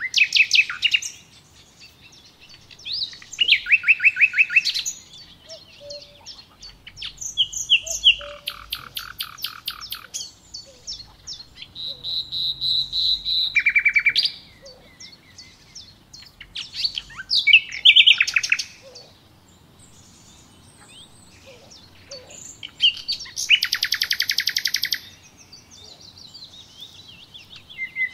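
A songbird singing in repeated phrases of rapid trills and chirps, a new phrase every few seconds with short pauses between.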